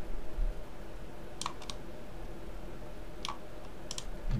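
Three sharp clicks from a computer mouse and keyboard working a 3D modelling program, two close together about a second and a half in and one more near the end, over a steady low hum.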